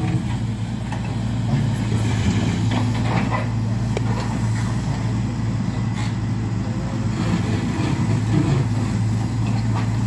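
Tracked hydraulic excavator's diesel engine running steadily at a low, even pitch, with a couple of faint knocks about four and six seconds in.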